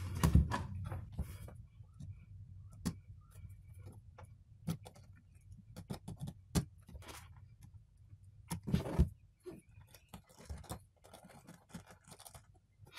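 Scattered small clicks, taps and scrapes of a small tool working on a tablet's loose USB charging socket to tighten it, with a louder cluster of clicks about nine seconds in.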